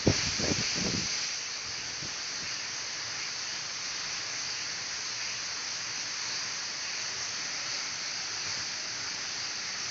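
Steady hiss of the Misol-Ha waterfall's falling water, with a few brief low thumps in the first second.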